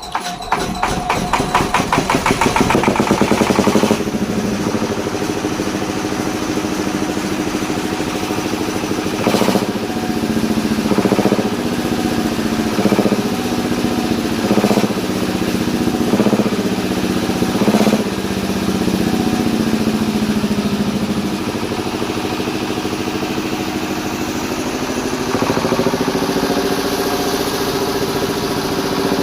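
Twin-cylinder generator engine starting: it fires rapidly and runs up over the first few seconds, then settles into steady running. About halfway in its speed surges briefly about six times, and its pitch rises slightly near the end.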